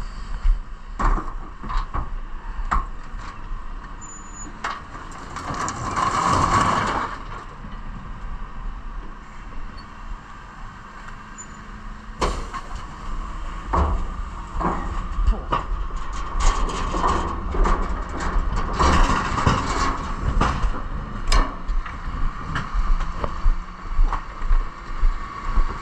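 A bin lorry's rear lift tipping a steel four-wheeled commercial waste bin into the hopper, over the lorry's engine running. Clanks and knocks come from the bin and lift mechanism, with two longer rushes of noise as the lift works and the rubbish empties. Near the end there is a run of regular thuds.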